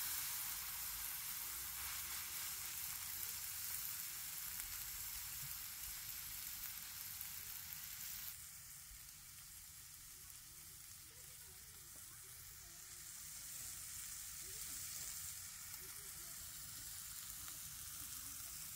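Seasoned chicken breast sizzling in hot oil in a cast-iron skillet: a steady hiss, loudest just after the meat goes in and dropping to a lower level about eight seconds in.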